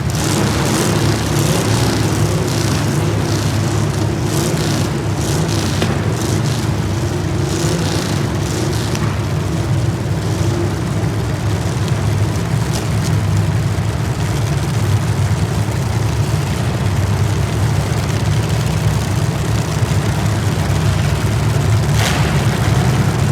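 Steady, loud low rumble of a heavy engine or vehicle running, with crackling noise through the first ten seconds and a short burst of hiss near the end.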